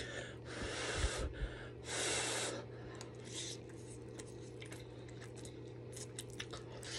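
Noodles being slurped and eaten, with two slurps in the first three seconds, the second louder, about two seconds in. After that comes soft chewing with small wet mouth clicks.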